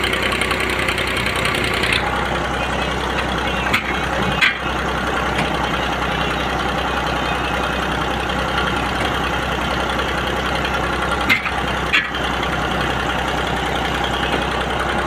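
Tractor engine running steadily, driving a clay brick-making machine through its PTO shaft. Two pairs of sharp knocks, about four and about eleven seconds in, from shovels striking the machine's steel hopper as wet clay is loaded.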